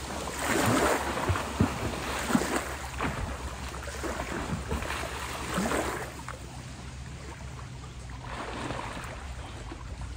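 Lake water splashing and lapping at a rocky shore, busier in the first six seconds and calmer after, with a low wind rumble on the microphone.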